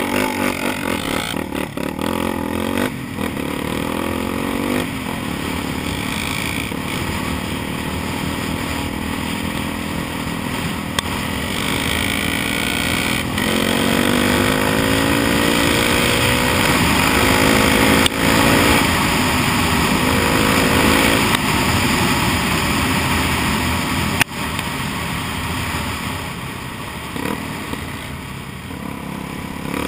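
Honda XR 250 Tornado's single-cylinder four-stroke engine pulling under load through the gears, heard from the rider's helmet: the pitch climbs, drops back at each shift and climbs again several times, over steady wind rush. A couple of sharp knocks come from bumps in the dirt track.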